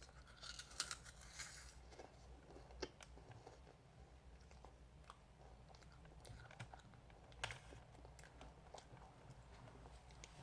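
A person biting into and chewing a crisp meringue cookie: faint, scattered crunches and small crackles, with a few sharper snaps in the first couple of seconds.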